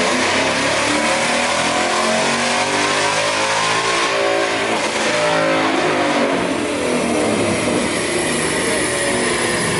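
A car engine running hard on a chassis dynamometer, loud throughout, its pitch swelling and easing as the run goes on.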